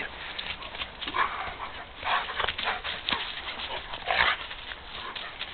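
Two dogs play-fighting, a small white fluffy dog and a larger shepherd-type dog, with short dog noises in several brief bursts about one, two and four seconds in.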